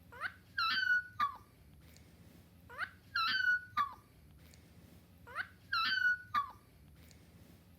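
A dog yawning out loud: a rising squeak, a high whine and a short falling note. The same yawn repeats three times, about two and a half seconds apart.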